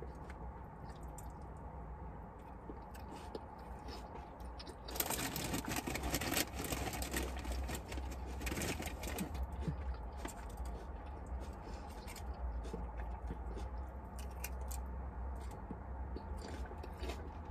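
Crinkling, crunching food handling and chewing, loudest for about five seconds starting about five seconds in, with scattered small clicks, over a steady low hum.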